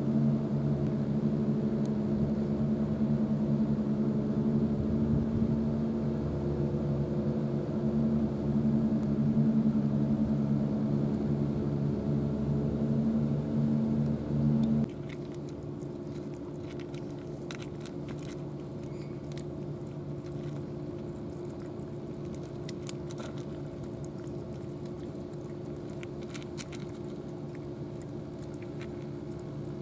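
A steady low machine hum with several fixed tones, which drops abruptly to a quieter level about halfway through. In the second half, cats chew dry kibble from plastic bowls: irregular crisp crunches and clicks over the hum.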